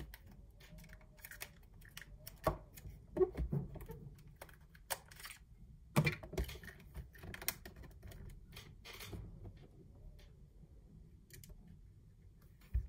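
Irregular sharp plastic clicks and taps as the plastic body parts of a DJI Mavic Air drone are handled and pressed back into place, with the strongest clicks about two and a half and six seconds in.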